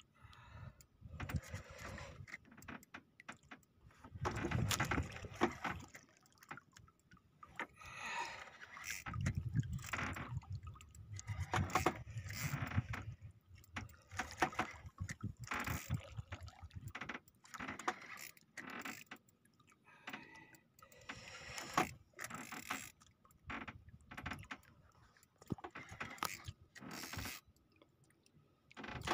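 Spinning reel being cranked and rod handled while fighting a hooked fish, with irregular clicks and rattles. Water sloshes against the small boat's hull.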